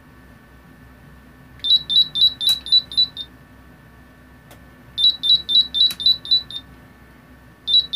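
GHD mk4 hair straightener control board's buzzer beeping in runs of about seven quick, high beeps, about five a second, three times over, with a couple of sharp clicks. The beep pattern is the straightener's sensor-error signal, the fault that was suspected on this board.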